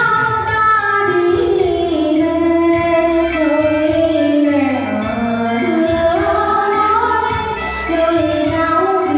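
A song: a woman singing a slow melody with long, sliding notes over a steady bass accompaniment.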